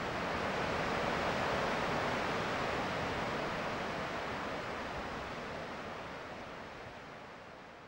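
A steady rush of water released down the Oroville Dam spillway. It swells over the first second or so, then slowly fades out.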